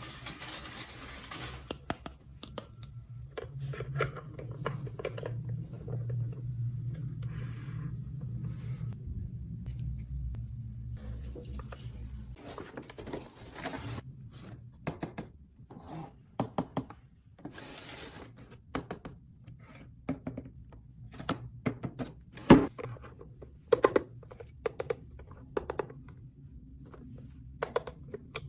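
Hands handling plastic toy pieces and packaging: a run of sharp clicks and taps, with short bursts of rustling or tearing.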